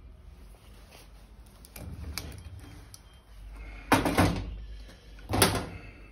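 Light clicks, then two loud clunks with a short scraping tail about a second and a half apart, as a Same Minitauro 60 tractor starter motor clamped in a bench vise is worked on by hand.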